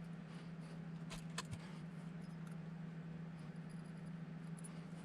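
A few faint clicks and light handling noises as the skid plate of a 1/24-scale RC crawler is unscrewed and removed with small tools, over a steady low hum.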